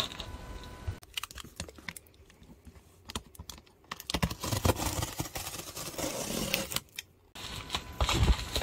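A utility knife slicing through packing tape on a cardboard box, with many small clicks and scrapes, then cardboard flaps rustling and scraping as the box is pulled open.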